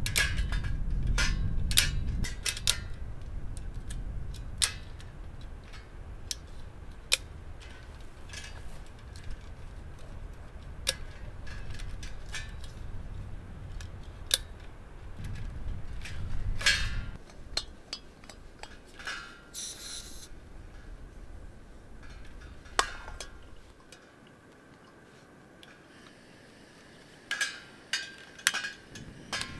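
Sharp metal clicks and clinks as a tripod gas-canister camp stove is unfolded and fitted together, with wind rumbling on the microphone for the first half. A short hiss a little past the middle, and a quick run of clicks near the end as a long lighter is held to the burner.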